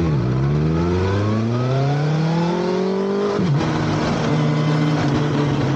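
BMW S1000XR's inline-four engine pulling hard as the bike accelerates away. The pitch rises steadily for about three seconds, drops sharply at an upshift, then holds steady, with wind rushing over the bike.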